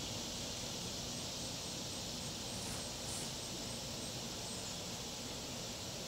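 Steady, even high-pitched outdoor background hiss with no calls or distinct events.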